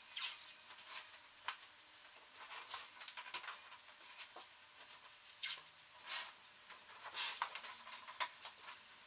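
Blue painter's tape being pulled off its roll, torn and pressed down onto a kayak's hard plastic hull: a string of short ripping sounds with quiet gaps between.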